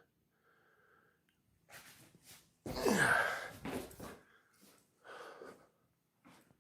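A person sneezes once, about two and a half seconds in, just after a short intake of breath.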